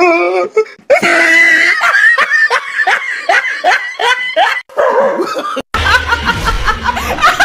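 Laughter: a quick run of high-pitched laughs, then a woman laughing loudly near the end.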